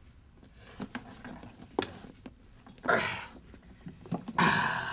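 Clicks and knocks of hands handling a wooden carrying case at its clasp and handle, with two short, loud, breathy rushes, one about three seconds in and a louder one near the end.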